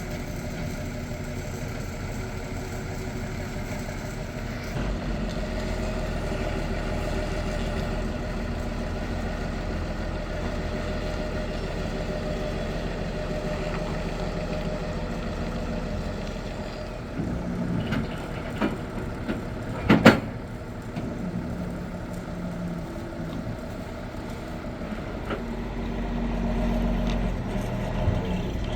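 Heavy diesel engine running steadily, with a few knocks and one loud sharp bang about two-thirds of the way through; the engine grows louder near the end.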